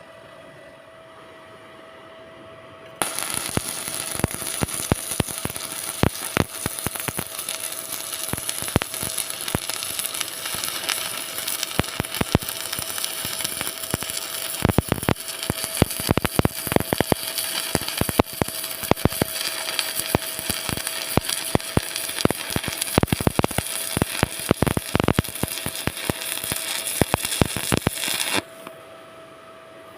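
Stick (shielded metal arc) welding arc crackling and popping on steel, starting suddenly about three seconds in and cutting off near the end, with a steady hum before and after.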